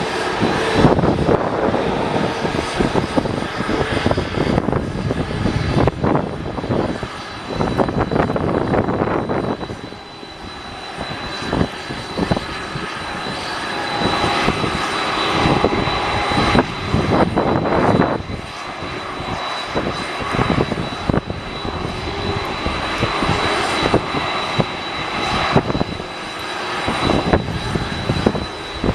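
Airliner jet engines running at an airport, a continuous rumble that rises and falls with a steady high-pitched whine over it.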